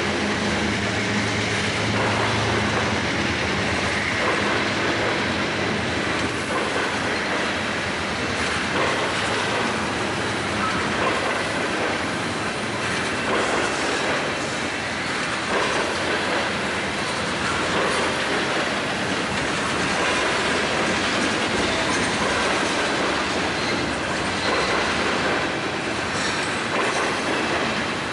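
Railroad cars rolling past, their wheels clicking over the rail joints, with a faint, steady, high wheel squeal.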